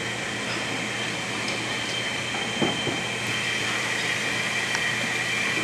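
Steady mechanical hum and hiss with a constant high whine, like ventilation or machinery running, with a brief faint voice-like sound about halfway through.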